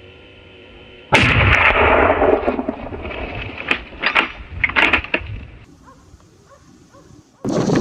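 Gunshots in the field during a wild boar hunt: a sudden loud rush of noise about a second in, then several sharp cracks around four to five seconds in.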